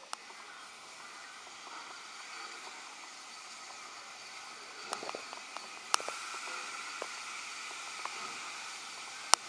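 Schools class steam locomotive 925 Cheltenham hissing steadily as it blows off steam before departure, with a few sharp clanks about five, six and nine seconds in.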